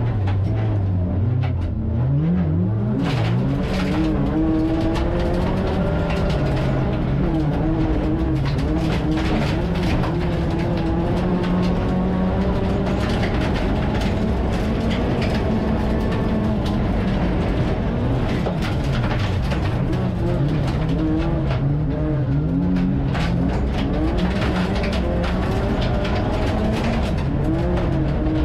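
Rallycross car engine heard from inside the cabin, revving hard, its pitch climbing and dropping again and again with gear changes and lifts for corners. Gravel and stones clatter against the car's body.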